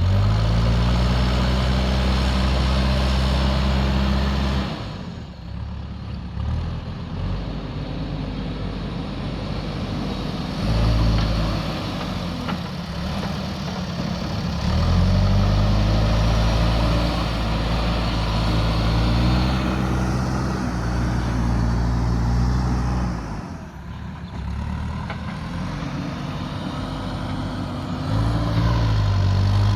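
JCB backhoe loader's diesel engine running under working load, its note rising and falling as the load changes, with two abrupt drops, about five seconds in and again near the end.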